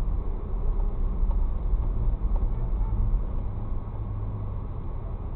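Low, steady rumble of a car in slow city traffic, heard from inside the cabin through a dashcam's microphone. It gets a little quieter near the end as the car comes to a stop.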